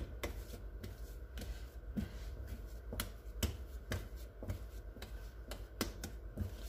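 Hands shaping a tacky, sweet bread dough into a ball on a silicone baking mat: irregular light clicks and soft slaps as the dough is tucked and pulls off the fingers and mat.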